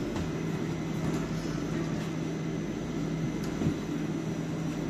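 Steady hum of a stationary electric passenger train standing at the platform, a low even tone under a wash of noise.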